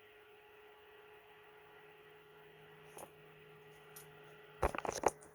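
Steady electrical hum from a 3D printer just switched on, with a lower hum joining about a second and a half in. A quick cluster of sharp clicks and knocks near the end is the loudest sound.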